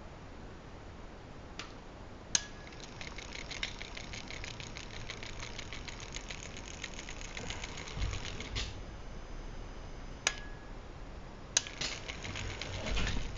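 Electric drives of a telemax bomb-disposal robot's manipulator arm and gripper running in a rapid mechanical ticking whir, begun by a sharp click. It stops about eight and a half seconds in, two more sharp clicks follow, and the rapid ticking starts again near the end.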